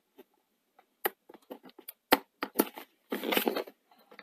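Clicks and taps of a small taped plastic parts box being handled and opened, with a short crackling rustle of plastic and tape a little after three seconds in.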